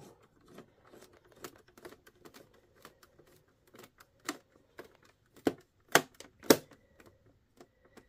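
Screwdriver tightening a screw into the plastic back cover of an all-in-one PC: a run of light clicks and taps, with a few louder, sharper clicks between about four and six and a half seconds in.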